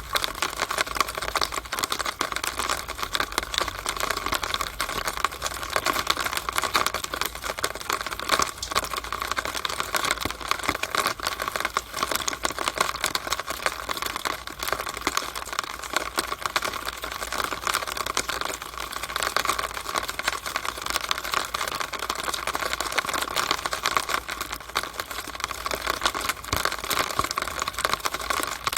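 Rainwater running down a rain downspout, a dense, fast, irregular patter of drips and trickling that stays even.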